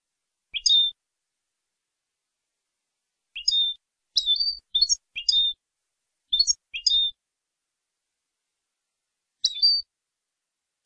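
European goldfinch (jilguero) singing clean, contest-style song: about eight short bursts of quick, high twittering notes, each under half a second, separated by silent gaps, with a longer pause before the last burst near the end.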